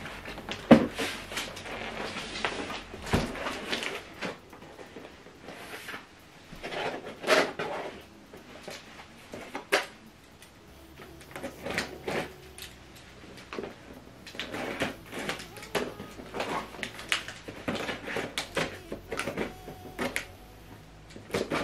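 Cardboard soundbar box being handled and its packing tape slit open with a pen: irregular scrapes, rustles and knocks, with a sharp thump about a second in.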